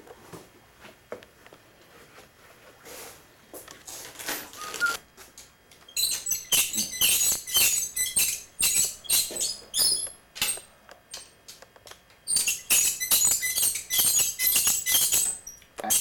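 Socket ratchet clicking in quick runs as bolts on a Corvair engine's top cover are tightened, starting about six seconds in and again from about twelve seconds. Before that there are only a few faint clicks of handling.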